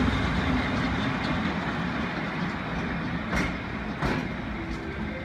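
Electric locomotive running light along the track, with a steady rumble of wheels on rails and sharp clicks from the rail joints about three and four seconds in. It fades slowly as it draws away.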